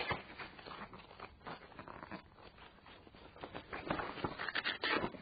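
Pages of a book being leafed through: a run of soft, irregular paper rustles and flicks, quieter at first and busier near the end.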